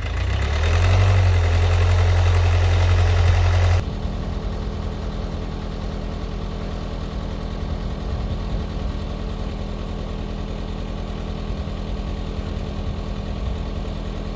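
Skid steer engine running, loud with a heavy low rumble for the first four seconds, then changing abruptly to a steadier, lower engine hum.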